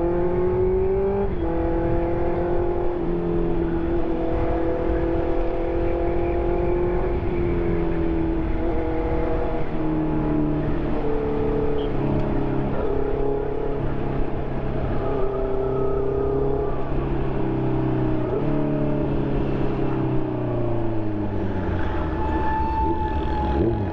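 2020 Honda CB650R's inline-four engine through an SC Project exhaust, riding along. The revs climb and then drop sharply about a second in at a gear change, hold mostly steady with small rises and dips, fall away about twenty seconds in, and rise again near the end.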